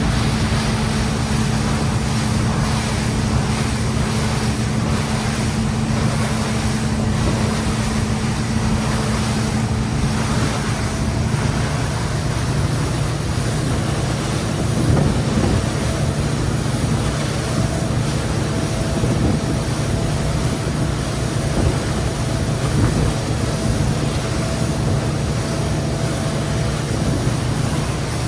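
Boat motor running steadily under way, a continuous low drone over rushing noise.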